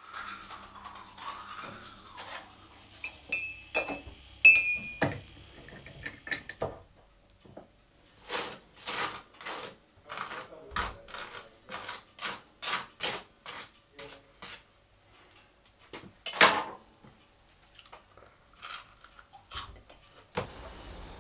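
Kitchen clatter: sharp clinks of crockery and cutlery, then a run of short scraping strokes at about two a second.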